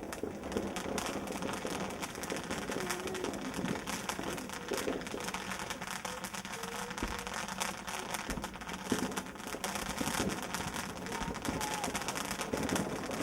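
Firework giving off a continuous dense crackle of many small, irregular pops, with no single big bang.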